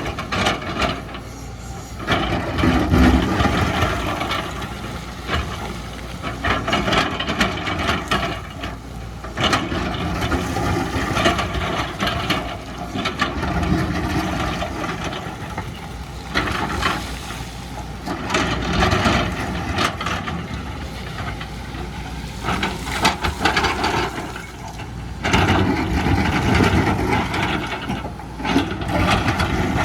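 Excavator's diesel engine working under load, swelling louder every few seconds, with rattling and knocks of the machine at work.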